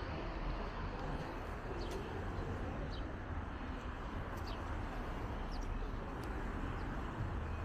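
City street noise: a steady traffic hum with a low rumble, and small birds chirping briefly every second or so.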